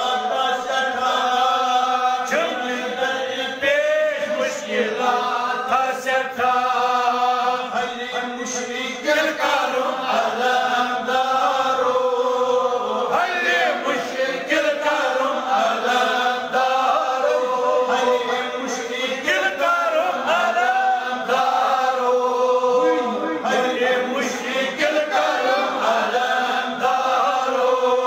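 Devotional chanting: voices sing a continuous chant in long, wavering held notes.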